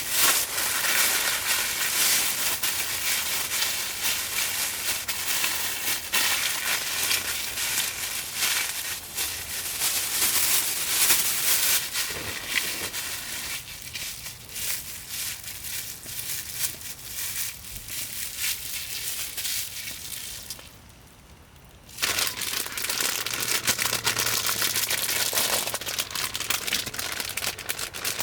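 Gyoza frying in oil in a pan, with a dense sizzling crackle. The sizzle drops away briefly about two-thirds of the way through, then comes back at full level.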